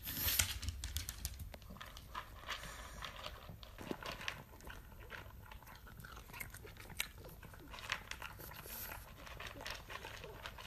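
A pug eating dry kibble from a plastic bowl: a quick, irregular run of small crunches and clicks as it chews.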